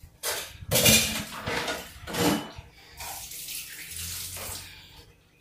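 Water running from a tap in irregular splashing bursts, then more steadily, with dishes clinking.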